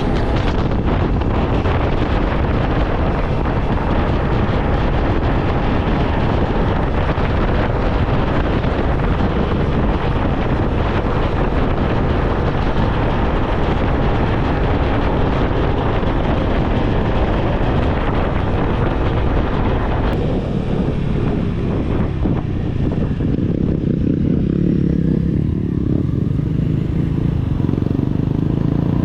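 A motor vehicle running, heard under a steady rush of wind on the microphone, as on a ride. About twenty seconds in, the high rush thins and a lower engine rumble and hum come forward.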